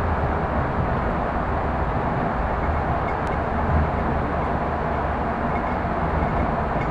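Steady running noise of a Yurikamome rubber-tyred automated guideway train, heard from inside the front car as it travels along the elevated track. A constant low rumble and hiss that holds at an even level.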